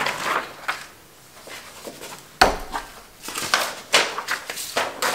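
Sheets of paper and children's artwork rustling and crinkling as they are handled and sorted, in irregular bursts, with one sharp tap about two and a half seconds in.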